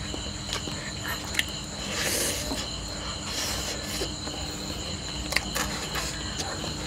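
Small clicks and two short crackling rustles as charred grilled frogs are picked apart by hand, over a steady chorus of crickets.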